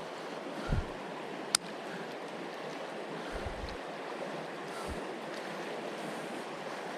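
Creek water running, a steady rush, with one sharp click about a second and a half in and a few soft low thumps.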